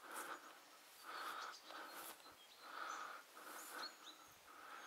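Footsteps of a person walking through long grass on a soft bank, a soft swishing step repeating at a steady walking pace. A few faint high bird chirps are heard over it.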